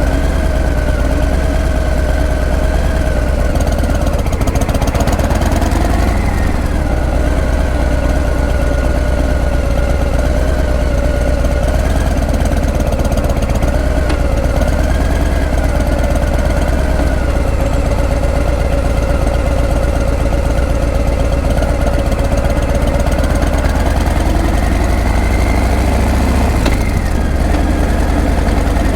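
Harley-Davidson Breakout's V-twin engine and exhaust running loudly at fairly steady revs. The pitch dips and rises a little a few times, most clearly about five seconds in and again near the end.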